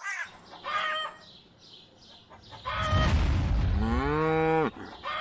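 Farm-animal sound effects: a couple of short chicken clucks, then one long cow moo, the loudest sound, whose pitch drops just before it stops.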